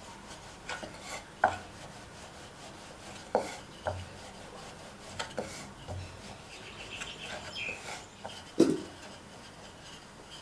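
Wooden rolling pin rolling out chapati dough on a round wooden board: faint rubbing with a few irregular light knocks of the pin against the board.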